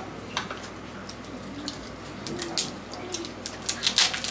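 Cooked mud crab shells being cracked and pulled apart by hand, giving scattered sharp clicks and crackles, with a quick cluster of louder cracks about four seconds in.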